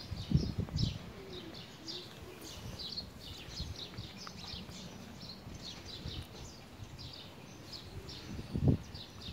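Small birds chirping busily, several short high chirps a second, over faint outdoor background noise. Low thumps on the microphone come about half a second in and again near the end.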